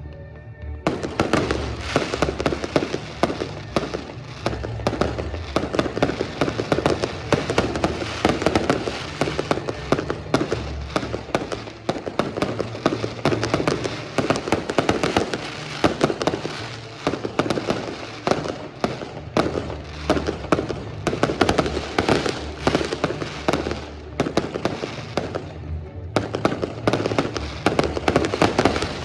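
Fireworks display: a dense, continuous barrage of bangs and crackles starting about a second in, easing briefly near the end before picking up again.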